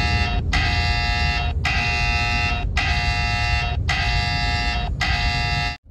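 Repeating electronic alert tone, a steady buzzing beep of about a second each, sounding about six times with short gaps, over the low rumble of a moving car's cabin; it cuts off suddenly near the end.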